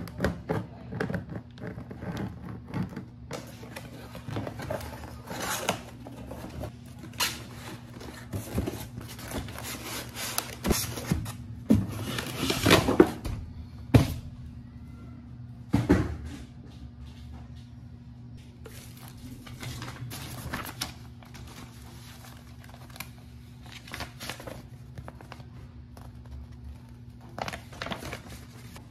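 Unboxing noises: scissors cutting through packing tape on a cardboard box, then styrofoam packing being handled and paper and plastic wrap rustling. There are many short scrapes and clicks, with a run of louder scraping and two sharp snaps about halfway through.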